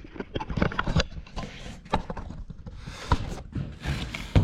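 Irregular clicks, knocks and scraping of hard objects being handled and set down.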